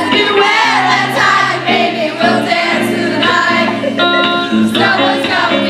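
Live pop music: a band playing held chords, with voices singing over them.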